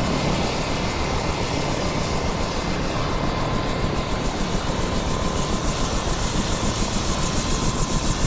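Helicopter running close by: loud engine and rotor noise with a steady whine, and a rotor beat of about five pulses a second that grows clearer from about three seconds in.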